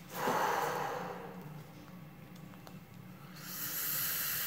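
A person's heavy, noisy breath out, then about three seconds in a longer, sharper hiss.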